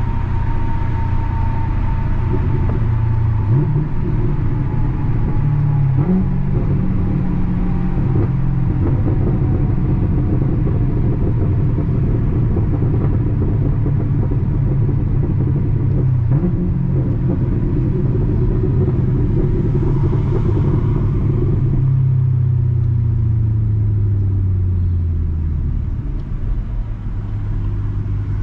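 Chevrolet Camaro V8 exhaust running under way. The engine note jumps up in pitch a few times as it is downshifted, with a few short pops, then falls steadily as the car slows near the end.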